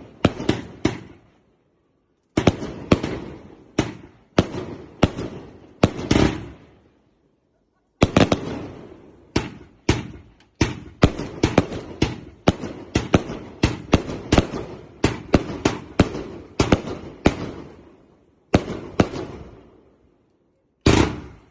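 Fireworks going off: volleys of sharp, echoing bangs in quick succession, broken by short pauses of a second or two.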